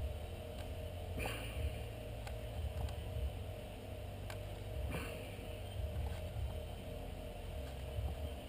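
Steady low hum with a few light clicks from hand-stitching leather with a needle and thread, the two sharpest about a second in and about five seconds in.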